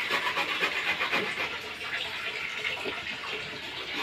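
Coconut flesh being grated by hand on a flat metal grater: quick, even rasping strokes that grow fainter a little past a second in and pick up again near the end.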